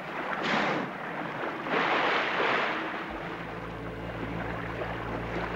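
Two whooshing rushes of blow and spray as a gray whale surfaces, the second one longer. From about three seconds in, soft background music with low held notes begins.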